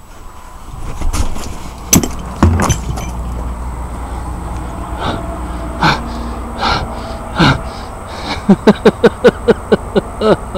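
A man's quick, panting gasps, about five a second near the end, after a few sharp knocks early on.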